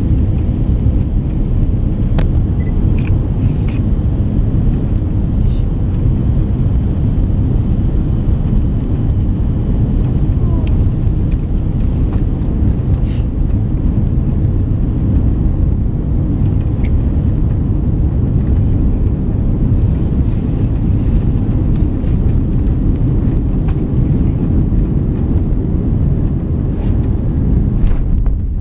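Steady low rumble of an Airbus A330-300's engines and airflow heard inside the passenger cabin, with a few faint clicks.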